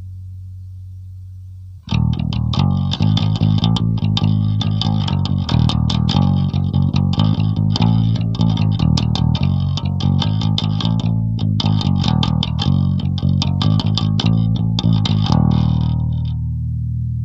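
Ibanez SRT805DX five-string electric bass played clean with no effects, through EMG 40DC pickups and a Darkglass Tone Capsule preamp. A low note fades out, then about two seconds in a quick passage of plucked notes with bright, sharp attacks begins. It breaks off briefly partway through and ends on a low note left ringing.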